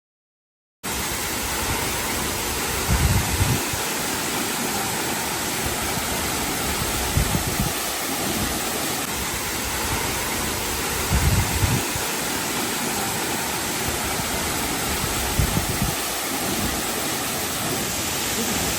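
Materuni waterfall's steady rushing roar of falling water, starting abruptly about a second in, with a brief low rumble recurring about every four seconds.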